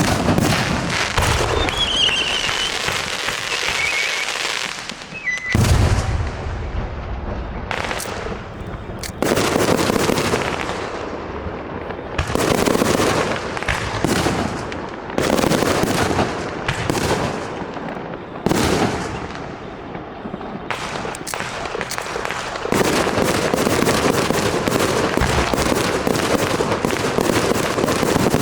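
Aerial fireworks shells bursting one after another, each a sudden loud boom with a crackling tail. Near the end the bursts merge into a dense, continuous crackling barrage.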